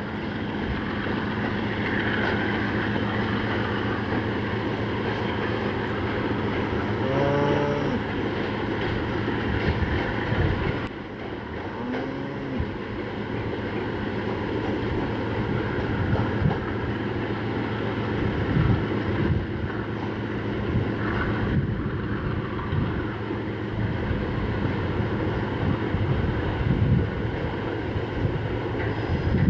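ChME3 diesel shunting locomotive's engine running steadily as it hauls a works train away, with wind buffeting the microphone. Two brief pitched squeals come through, about seven and twelve seconds in.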